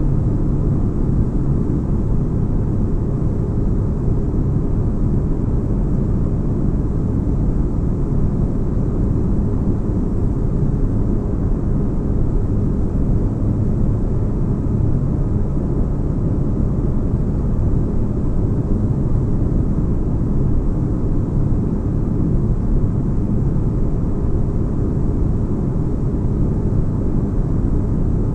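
Steady, deep rumbling spaceship-interior ambience: an even, unbroken low hum of noise, like white noise with deep bass.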